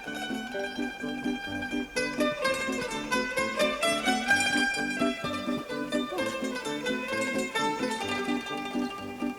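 Background music of plucked strings, with many short notes over a quick, steady rhythm.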